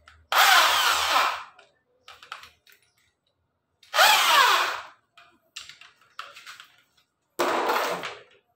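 Electric drill fitted with a 10 mm metal-cutting bit, run in three short bursts of about a second each, its motor whine rising as it spins up and falling as it winds down, with small clicks between the bursts.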